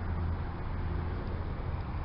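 Steady low rumble of a vehicle driving, road and engine noise without distinct events.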